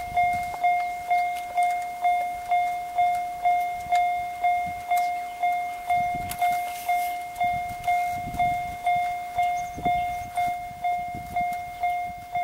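Japanese railway level-crossing warning bell ringing, one even electronic ding repeated about twice a second: the crossing is closed for an approaching train.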